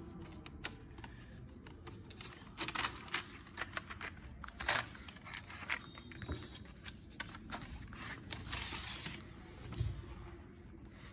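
Coloured pencils clicking against each other in their cardboard box as one is picked out, with paper rustling. A scattered series of light clicks and short scrapes.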